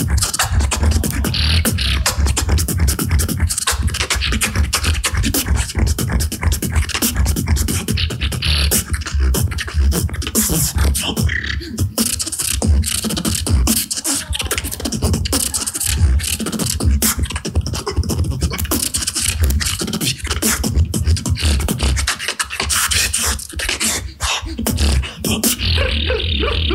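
Beatboxing: a continuous, dense rhythm of mouth-made drum sounds with deep bass.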